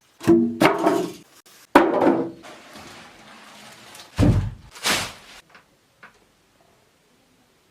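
A series of loud thuds and knocks from handling the portable party speaker and its packaging, with a deep low thump about four seconds in.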